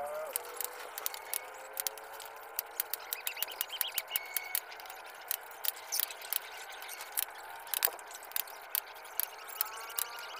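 Welded wire mesh clicking and rattling as it is handled by hand: many irregular sharp metal clicks.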